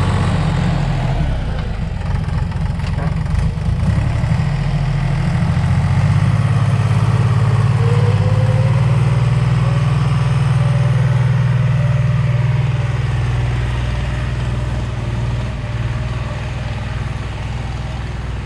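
Engine of a heavy earthmoving machine pushing dirt, running close by as a steady low drone; its pitch rises about eight seconds in, and it gets quieter toward the end.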